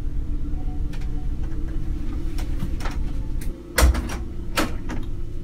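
A bedroom door being opened, with scattered light taps and clicks and one loud thud about four seconds in, over a steady low hum.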